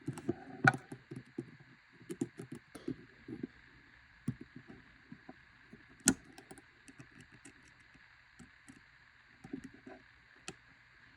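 Small clicks and taps of a baitcaster reel's parts and a small screwdriver being handled as the reel is put back together, busiest in the first few seconds, with one sharp click about six seconds in.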